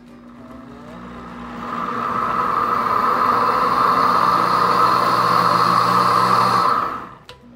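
Pampered Chef Deluxe blender pulsing soup: the motor spins up over about two seconds, runs with a steady whine, and stops shortly before the end.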